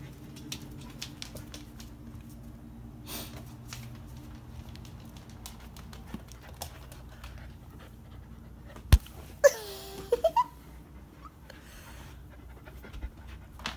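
Bernese mountain dog puppy panting, with scattered light clicks and taps. About nine seconds in there is a sharp knock, followed by a brief high whine that bends up and down in pitch.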